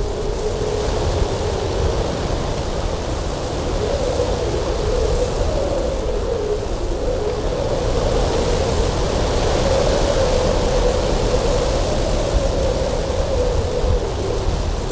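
Cold winter wind blowing steadily over a mountain pass, a loud rushing noise with a low wavering tone running through it, swelling a little mid-way and easing slightly near the end.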